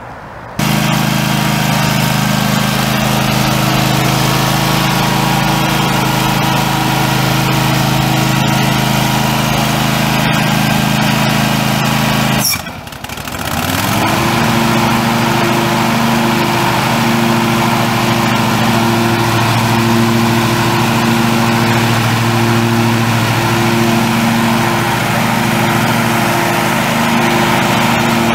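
Craftsman GT6000 lawn tractor's Kohler 725cc two-cylinder gas engine running steadily. About halfway through the sound dips briefly, then the engine's pitch climbs back up and holds steady.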